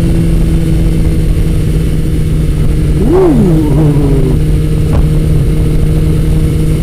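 Motorcycle engine running at a steady cruise under heavy wind rush on the helmet microphone, a loud whooshing. About three seconds in, a short tone swoops up and back down.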